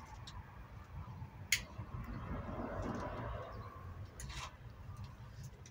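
A cigarette lighter struck to light a cigarette: one sharp click about a second and a half in, then a short scratchy hiss a little after four seconds, over a low steady rumble.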